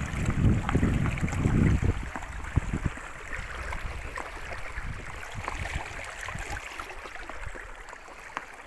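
Water rushing and splashing along the bow of a pedal-driven inflatable boat under way, with many small splashes. A heavy low rumble on the microphone covers the first couple of seconds, then the water sound goes on more softly.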